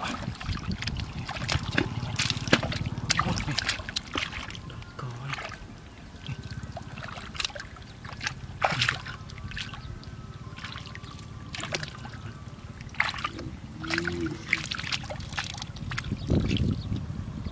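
Hands sloshing and splashing through shallow muddy water while groping along the bottom for fish, in a run of irregular wet splashes.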